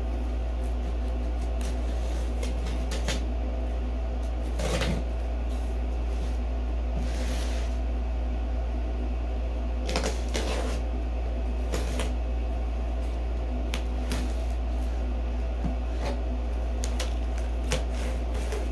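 A knife slicing packing tape on a cardboard shipping box, with scattered scrapes, rasps and clicks as the cardboard flaps are handled. A steady low hum runs underneath.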